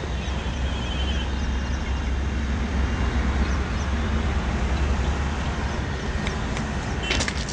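Steady low rumbling noise with no rise or fall, with a few faint bird chirps about a second in.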